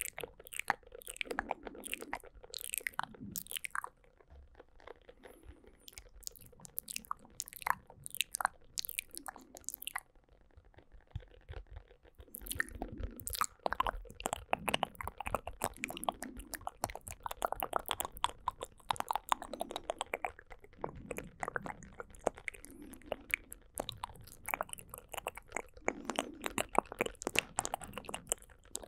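Close-miked wet mouth sounds: a dense, irregular run of tongue clicks and lip smacks, with softer mouth noises in between.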